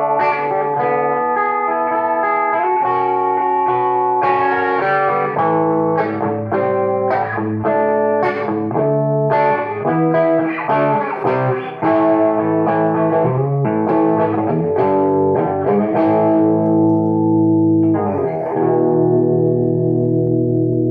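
Electric guitar, a late-1970s Penco Les Paul copy, played through a converted Hammond AO-43 amplifier with its tone control about a quarter of the way up: a run of struck chords and single notes, each ringing on.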